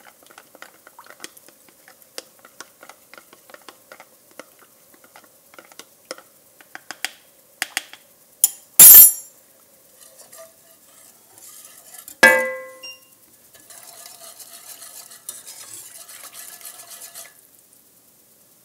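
A spoon stirring cornstarch into cold water in a small glass cup: a quick run of light clinks for about eight seconds, then two sharp, loud clanks. About twelve seconds in comes a single ringing metal strike, followed by a few seconds of a wire whisk stirring the sauce in the pot.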